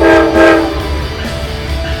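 Train horn sounding a chord of several tones in two blasts: one ends about a quarter second in and a short one follows about half a second in. A steady low rumble from the passing train runs underneath.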